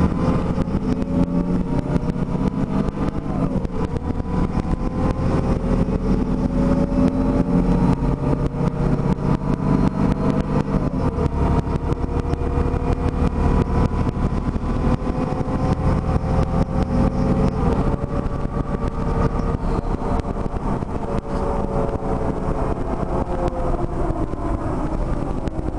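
Diesel engine and drivetrain of a 1999 Mercedes-Benz Citaro single-deck city bus, heard from the rear seats over the rear-mounted engine while the bus drives. Under a steady rumble the engine note climbs and then drops back three times as the gearbox changes up.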